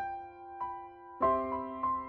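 Slow background music: single struck notes, then a louder chord a little over a second in, followed by two more notes.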